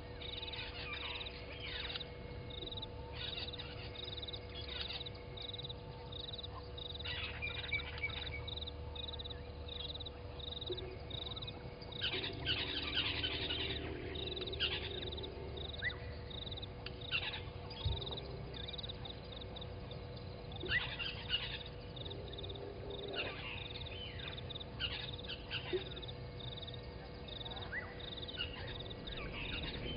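Dawn birdsong: many scattered bird calls and chirps over a high note that repeats about twice a second throughout, with a steady faint hum underneath.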